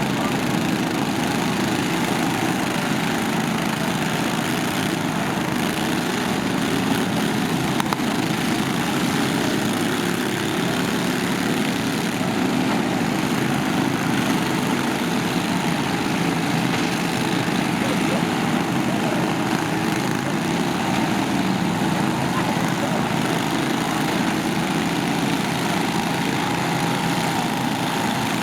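Several lawn tractor engines running together in a lawn mower demolition derby, a steady mixed engine noise.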